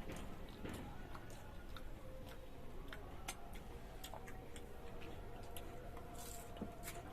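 Eating sounds: scattered small clicks and crunches as crisp phuchka (pani puri) shells are bitten and chewed.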